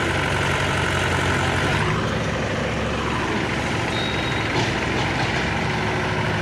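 Mahindra tractor's diesel engine running steadily under load as it pulls a trolley heavily loaded with logs; its note changes about two seconds in.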